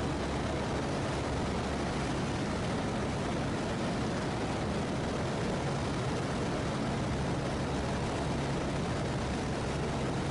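Just Aircraft SuperSTOL XL light aircraft in flight: its engine and propeller drone steadily under a constant rush of air noise, with a steady low hum.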